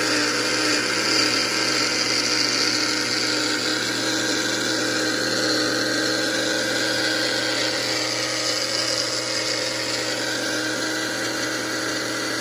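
Mainstays personal blender's 220-watt motor running steadily at full speed, blending pomegranate into a smooth liquid while its power button is held down.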